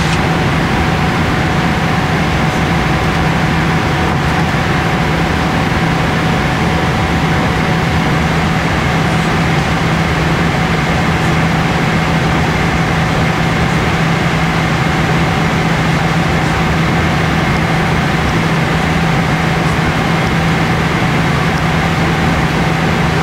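Steady cabin noise of a Boeing 777-300ER in cruise: the even rush of air and engine drone, with a constant low hum under it.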